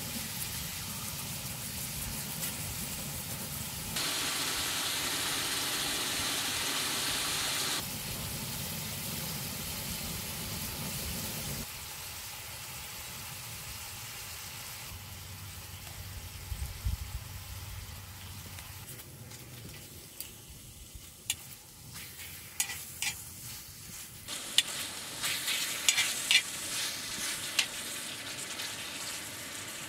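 Pork belly sizzling in a black wok-style pan on a camping gas burner. The sizzle steps louder and quieter a few times, and in the second half metal tongs click and knock against the pan as the meat is turned.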